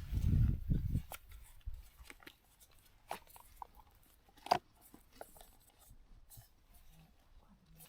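Someone eating a camp meal: small spoon clicks and crunching chews, with a low rumble in the first second and one sharper click about four and a half seconds in.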